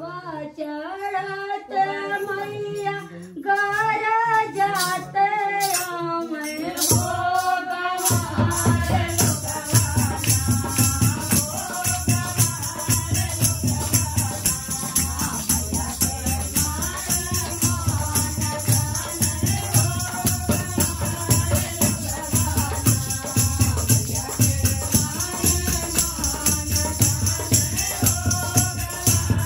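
A song: a voice sings on its own for the first several seconds. About eight seconds in, full accompaniment joins, with a steady beat and continuous jingling percussion like a tambourine or shakers.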